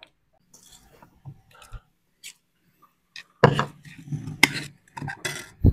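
Kitchenware clattering while cooking: a few light clicks and knocks, then from about three and a half seconds in a busier run of knocking and scraping of pots, bowls and utensils, ending in a loud thump near the end.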